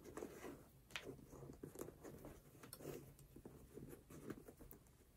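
Faint, irregular rustling and scraping of flat fabric shoelaces being handled and drawn across a sneaker's upper, with soft scuffs of fingers on the shoe. The clearest scuff comes about a second in.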